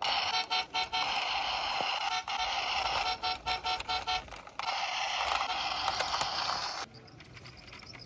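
Toy double-decker bus's built-in sound unit playing an electronic tune, set off by a finger pressing its roof. It starts suddenly, with short breaks, and cuts off about seven seconds in.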